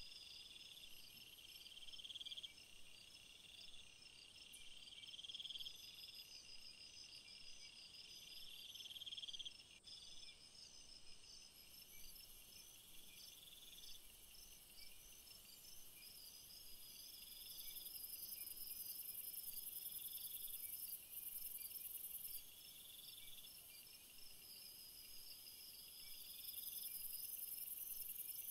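Faint chorus of crickets and other insects: a steady pulsed trill, repeated short chirping phrases a little lower, and a higher buzzing that grows stronger from about halfway through and again near the end.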